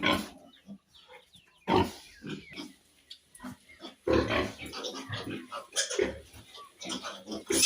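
Pigs grunting in irregular short bursts, sparse at first and busier in the second half.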